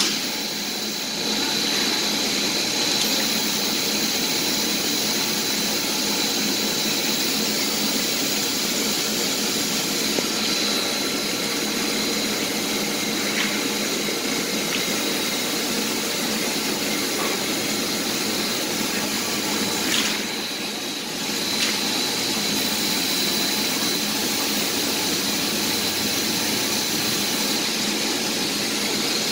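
Steady machinery noise with a thin high whine running through it, dipping briefly about twenty seconds in.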